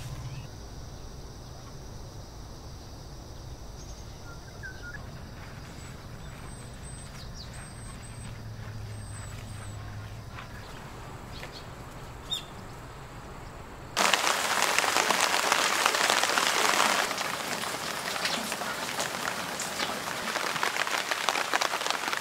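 Quiet outdoor background with a few faint bird chirps. About two-thirds of the way in, heavy rain starts suddenly and keeps falling steadily, loudest for its first few seconds.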